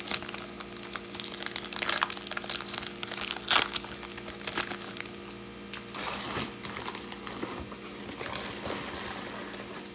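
Trading-card pack wrapper crinkling and tearing as it is opened by hand, with sharp crackles loudest in the first few seconds, then quieter rustling as the cards are pulled out.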